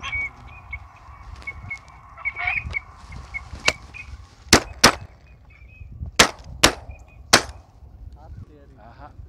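Shotgun fired about six times over roughly four seconds, some shots in quick pairs, at ducks in flight. Waterfowl call with short repeated high notes in the first half.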